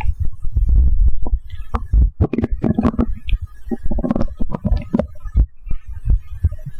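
Stomach gurgling and rumbling after drinking a can of Coke, the carbonation working through the gut: a constant low rumble with bubbly gurgles about two and four seconds in, and scattered short clicks.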